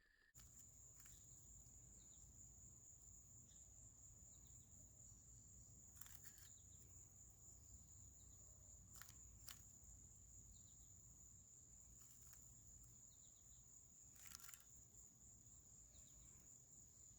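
Near silence: a faint steady high-pitched whine over a low hum, with a few faint clicks.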